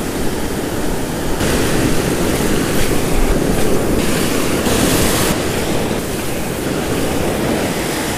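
Ocean surf breaking and washing up over the sand: a steady rush of water and foam.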